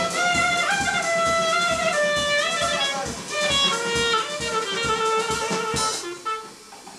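Music with a melody over a steady beat, cutting off about six seconds in.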